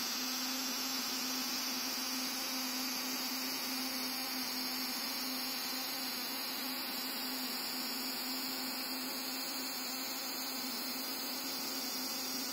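Plasma discharge of a high-voltage plasma module on a small CNC gantry, buzzing steadily with a hiss as it treats a wooden workpiece.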